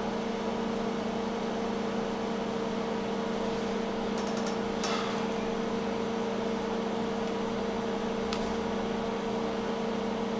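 A steady electric hum from running equipment, two low tones holding constant over a light hiss. It has a faint tick about five seconds in and another near eight seconds.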